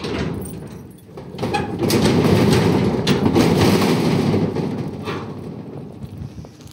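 Clicks of a key in a padlock, then a corrugated sheet-metal gate and its chain rattling loudly for a few seconds as the gate is unfastened and pushed open. The rattle dies away near the end.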